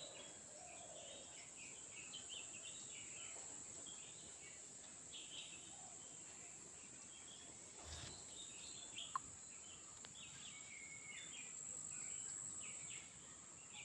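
Faint outdoor ambience: a steady high-pitched insect chorus, with scattered bird chirps over it and a soft thump about eight seconds in.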